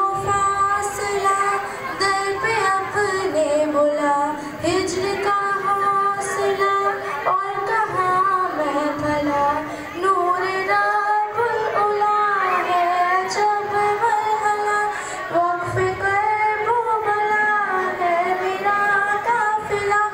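A girl singing a naat solo, in long held, ornamented notes that slide and step between pitches, with no instruments.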